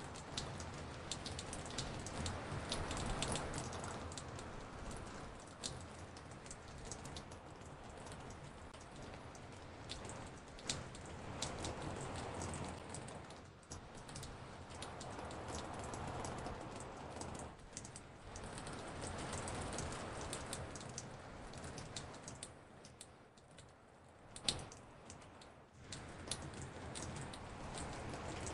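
Raindrops dripping on a porch, many recorded drip samples layered together: a dense scatter of small taps over a soft rain hiss that swells and fades every few seconds, with one sharper tap near the end.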